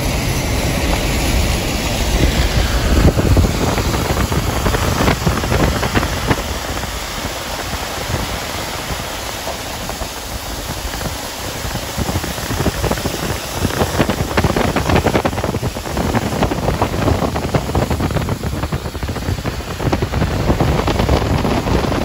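Loud rushing road and wind noise from driving alongside a semi-truck on a rain-soaked highway: tyres hissing through water on the pavement, with wind buffeting the microphone.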